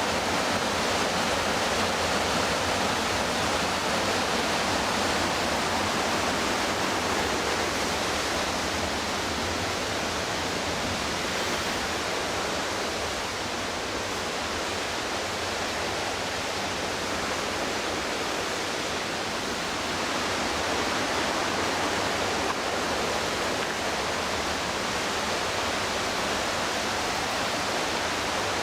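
McKenzie River whitewater rushing in a steady, dense wash of water noise, a little softer midway through.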